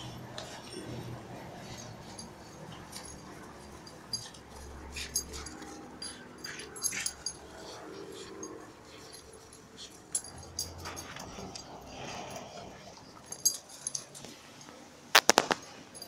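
Puppy playing with a chew toy, making small dog sounds over scattered short clicks, with a sharp cluster of knocks about fifteen seconds in.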